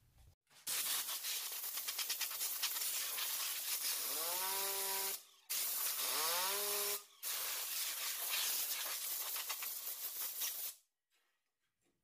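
Compressed-air blow gun blasting dust out of a space heater's fan and motor: a loud hiss in three long bursts, with short breaks about five seconds in and about seven seconds in. Twice a whine rises in pitch and then holds under the hiss, as the heater's freed fan spins up in the air stream.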